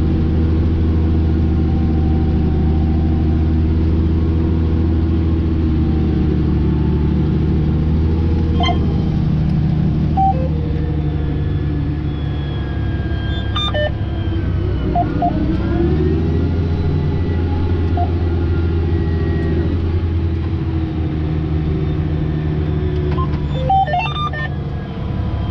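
Fendt 1167 Vario MT track tractor's diesel engine heard from inside the cab, running steadily under load while pulling a nine-shank V-ripper. About halfway through, its pitch dips and climbs back as the tractor turns at the headland. A few short beeps come through now and then.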